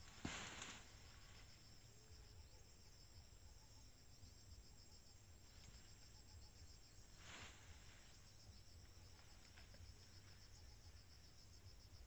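Faint insects chirping steadily in a rapid, even pulse, with two brief rustles, one just after the start and one about seven seconds in.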